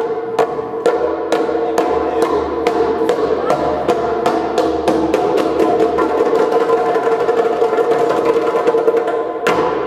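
Djembe struck with bare hands in a loose rhythm of sharp slaps, about two a second, over a steady held musical tone.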